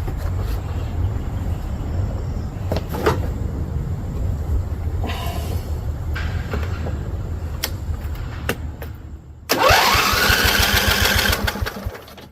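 Riding mower engine cranked by its electric starter for about two seconds, the starter whine rising as it spins up, with a fast pulsing under it. The engine does not fire, and a spark tester on the plug lead shows no spark. Before the cranking there is a steady low rumble.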